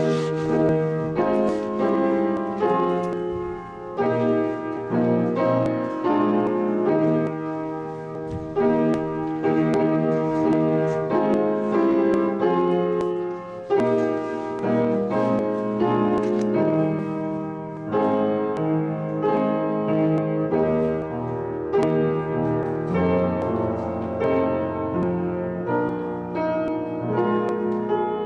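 Solo piano playing a slow piece in chords, with a low bass note held from about two-thirds of the way through.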